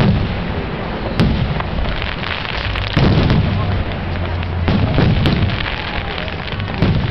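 Aerial fireworks going off: loud bangs about every one to two seconds over a continuous crackle of bursting shells.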